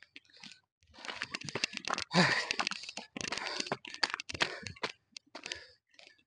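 A man breathing hard and panting from the exertion of climbing a steep hill, in irregular rushes of breath with sighing gasps and one short voiced groan about two seconds in.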